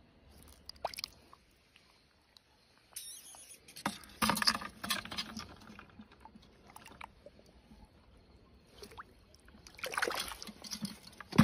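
Shallow muddy water splashing and sloshing in short bursts as metal tongs jab at an eel in it, with a few light clicks first and the loudest splashes in the middle and near the end.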